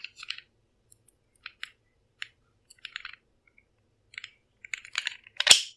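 Scattered light plastic clicks and scrapes as a 3D-printed bit adapter is worked onto the motor shaft at the front of a 3D-printed screwdriver case, with a sharper click near the end.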